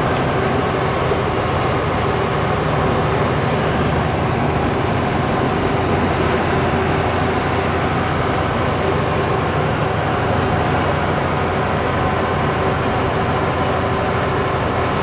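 Steady drone of a loaded semi-truck's diesel engine and tyre noise while driving at road speed, heard from inside the cab.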